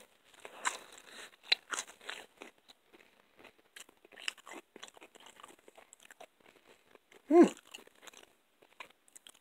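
A person chewing a mouthful of crunchy pizza close to the microphone: irregular soft crunches and mouth clicks. About seven seconds in comes one short, louder sound with a falling pitch, the loudest thing heard.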